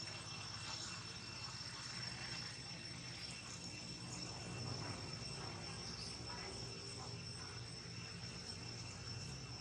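Steady, high-pitched insect trilling in the background over a low, steady hum.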